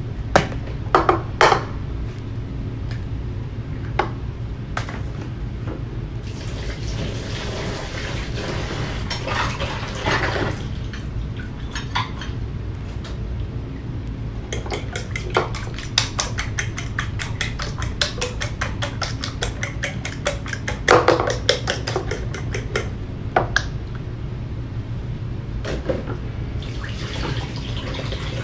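Eggs cracked into a bowl with a few sharp knocks, then beaten with a utensil that clicks rapidly and evenly against the side of the bowl for several seconds. A steady low hum runs underneath.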